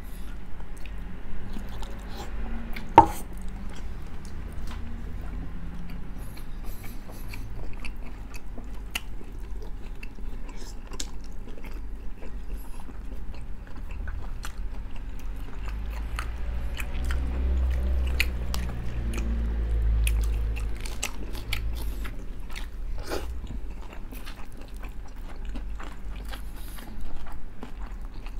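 Chewing and biting into crispy pata, deep-fried pork leg skin and fat, with many sharp crackles of the crisp skin and one loud crack about three seconds in.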